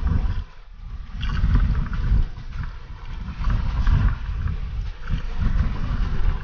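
Wind buffeting the microphone in uneven gusts on a small outrigger boat at sea, over a crackle of water splashing at the hull.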